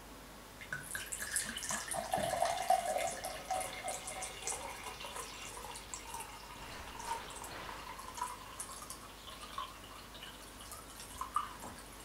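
Water pouring from a glass bottle into a tall drinking glass, beginning about a second in; it splashes loudest for the first few seconds, then settles into a steadier stream whose pitch rises as the glass fills, with a couple of small splashes near the end.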